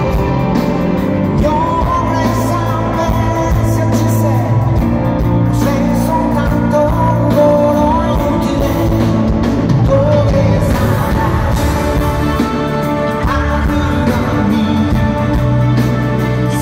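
Live pop-rock band playing with a male lead singer and female backing vocalists, over drums, bass, guitar and keyboards, recorded from the audience in a large hall.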